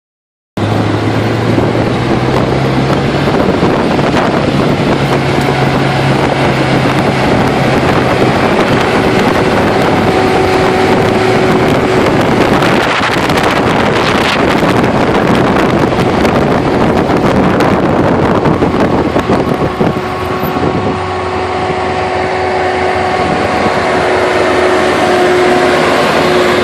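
John Deere 7330 tractor running steadily under load as it pulls a John Deere 568 round baler through the hay, the engine's hum carrying a steady whine over the clatter of the machinery.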